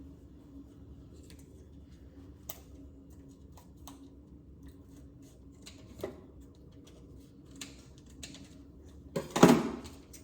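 Scattered small clicks and taps of a tofu package being handled and cut open with kitchen scissors, with one short, much louder rustle about nine seconds in.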